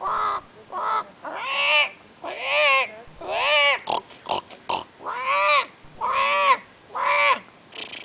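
A man imitating bird calls with his voice: a run of about eight drawn-out calls, each rising and falling in pitch, with a quick series of short clicks in the middle.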